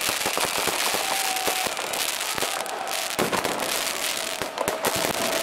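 Fireworks and firecrackers going off all around: a dense, continuous crackle of small bangs over a steady hiss.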